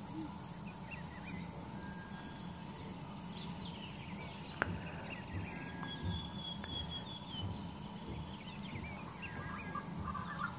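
Faint, short, high chirping calls like birdsong over a steady background hum, with a single sharp click about four and a half seconds in.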